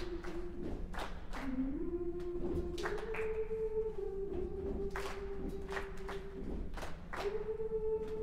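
Women's a cappella choir singing held notes that step up and down in pitch, over body percussion of hand claps and thumps.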